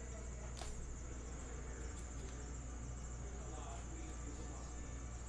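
Quiet room tone: a steady low electrical hum and a thin, steady high-pitched whine over faint hiss, with a few faint ticks as trading cards are handled.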